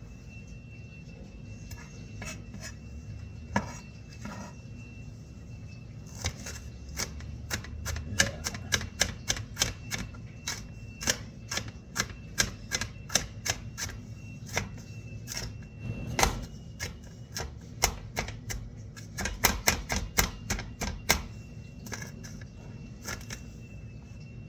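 Kitchen knife chopping a red pepper on a cutting board into very small pieces: quick, irregular knocks of the blade on the board, a few at first, then two to four a second for most of the stretch before slowing near the end.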